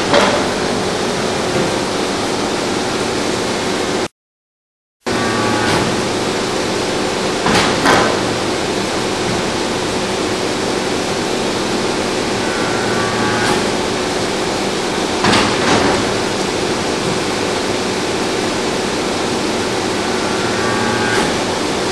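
Y83-300 hydraulic metal-chip briquetting press running: a steady hydraulic pump hum with a pair of sharp knocks about every seven and a half seconds as it cycles. The sound cuts out completely for about a second near the start.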